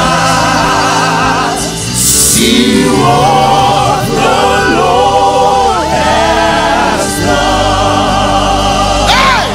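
Live gospel worship music: a male lead singer and backing singers singing a slow, sustained melody with vibrato over a band's steady low accompaniment.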